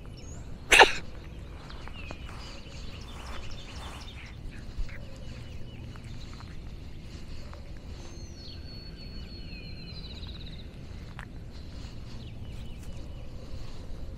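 A single short, loud sneeze about a second in. Birds sing in the background, with a long whistled trill around the middle.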